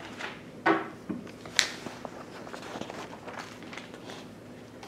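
Dry-erase marker writing on a whiteboard: a run of short scratchy strokes and taps, with a sharp, bright click about a second and a half in.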